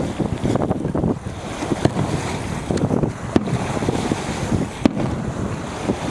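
Strong wind buffeting the microphone as a steady low rumble, with two sharp cracks from fireworks about three and a half and five seconds in.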